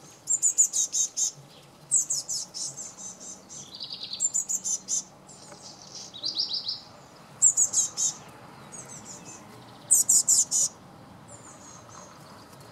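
Young Eurasian blue tit calling: about six bursts of rapid, very high, thin notes in quick runs, separated by short pauses.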